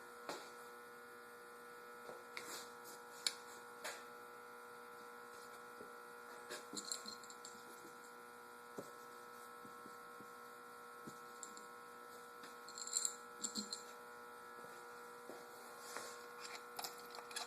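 Faint steady electrical hum, with scattered light clicks and knocks of things being handled, a small cluster of them near the end.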